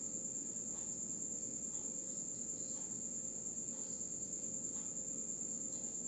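A steady high-pitched insect trill, with faint crunchy chewing of a turon, a banana spring roll in a fried wrapper, beneath it.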